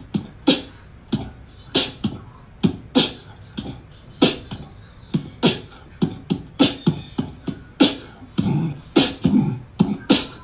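A rhythmic, percussive beat of sharp hissing hits, some with lower thuds, coming one or two a second.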